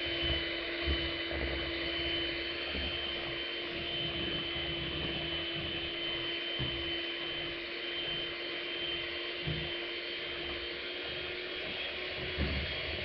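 Electric hand mixer running steadily, its beaters whirring through shea butter, cocoa butter and coconut oil in a plastic bowl, with a steady motor whine and a few soft knocks as the beaters work through chunks.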